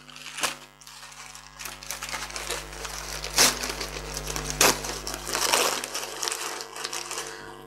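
Brown kraft paper wrapping and packing tape being handled and pulled open: rustling and crinkling paper, with a few sharper crackles about half a second, three and a half and four and a half seconds in.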